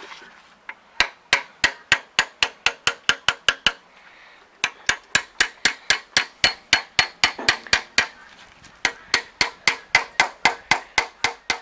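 Steel hammer striking a drift held against a bearing on an MTZ-80 tractor's axle shaft. The blows come fast and even, about four a second, in three runs separated by two short pauses.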